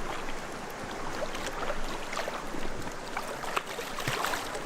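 River water flowing steadily, with scattered small splashes and ticks.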